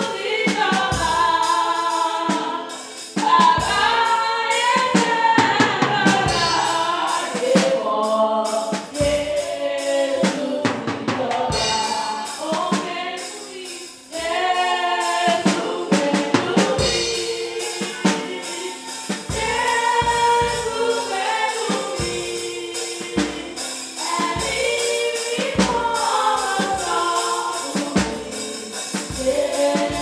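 Church choir singing a gospel song, accompanied by drums.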